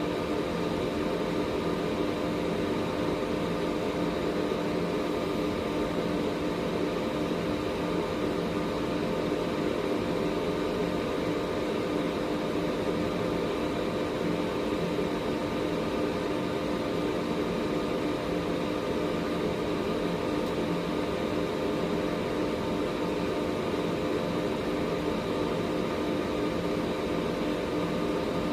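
Air purifier running steadily: an even rush of air from its fan over a constant motor hum.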